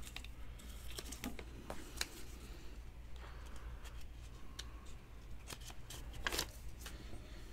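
Trading cards in rigid plastic top loaders being handled on a table: scattered light clicks and soft rustles, with a sharper click about six seconds in, over a low steady hum.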